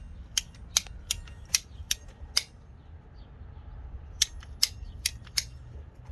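Hand cutters snapping through a rubber A/C refrigerant hose in a run of sharp clicks, about two or three a second. Six clicks, a pause of about two seconds, then four more.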